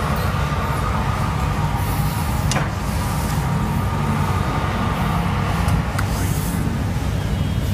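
Steady low mechanical hum, with two faint clicks about two and a half and six seconds in.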